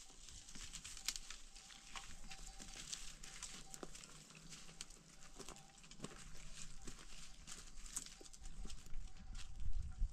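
Scattered light knocks and clicks, irregularly spaced, with a low rumble growing near the end.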